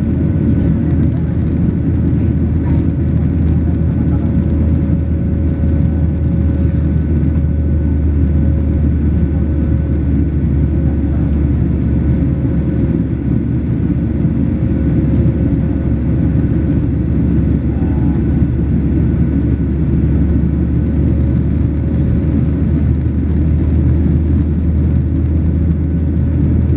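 Steady engine and airflow noise inside the passenger cabin of a Boeing 737-800 with CFM56-7B turbofans: a dense low rumble with a thin steady whine held over it.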